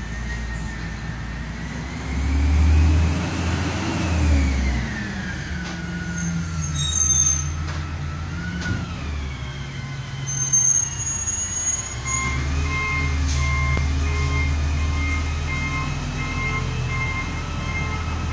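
A heavy truck running, its engine rumbling steadily under a whine that rises and falls. About two-thirds of the way in, a reversing alarm starts beeping, about twice a second.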